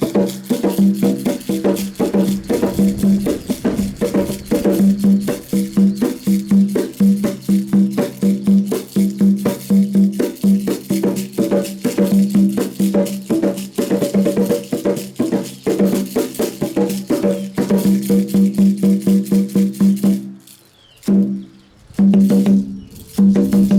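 Small Buganda namunjoloba drum played hand-struck in a fast, continuous run of strokes, each with a clear ringing pitch. The playing breaks off about twenty seconds in, and a few more short runs of strokes come near the end.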